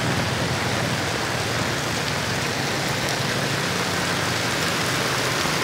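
Heavy tropical rain falling steadily onto a wet street and standing water.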